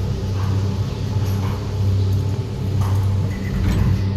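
Steady low mechanical hum running without a break.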